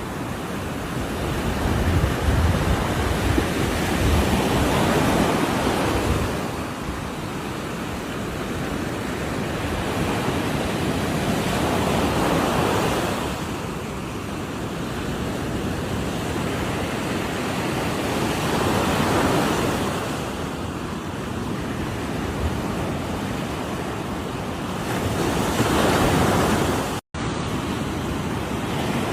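Ocean waves breaking on a shore, the surf swelling and easing every several seconds. The sound cuts out for a moment near the end.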